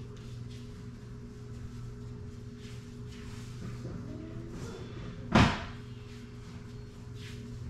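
A single sharp bang about five seconds in, with a brief ring after it, over a steady low hum.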